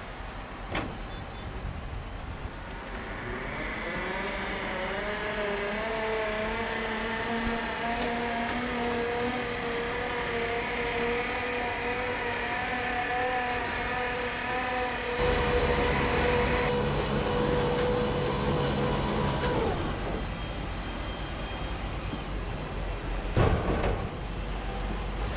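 Tractor engine driving a Strautmann Giga-Vitesse loader wagon's unloading gear as it discharges grass silage. The machine note rises over the first few seconds and then holds steady, drops away about 20 s in, and there is a single knock near the end.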